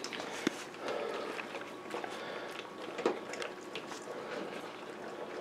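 A St. Bernard eating dry kibble from a plastic bowl: irregular crunching and chewing, with sharper clicks about half a second and three seconds in.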